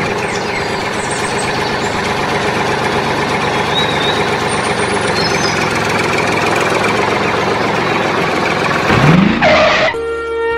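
Tractor engine running steadily. About nine seconds in there is a brief rising sweep, and then flute music begins.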